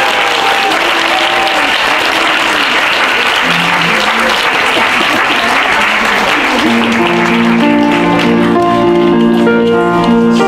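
Audience applauding, then about seven seconds in instrumental accompaniment starts with held chords, as the next song begins.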